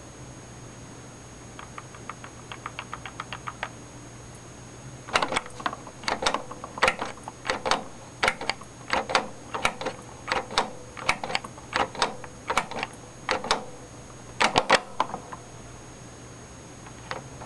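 Clicking from an IBM 14P CRT monitor's front-panel buttons being pressed. First comes a quick run of faint clicks, then louder clicks about twice a second for some ten seconds, with a faint hum under them.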